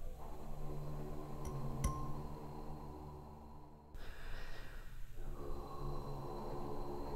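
Contrabass flute with electronics: breathy, airy blowing over a low droning tone. A single click sounds about two seconds in, and the sound thins out before coming back abruptly about four seconds in.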